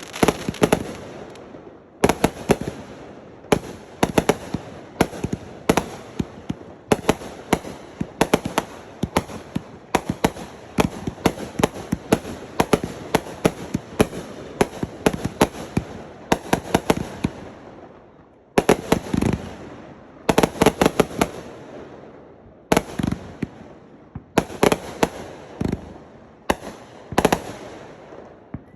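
Fireworks going off in quick succession: dozens of sharp bangs, at times several a second, each trailing off in a rumbling echo.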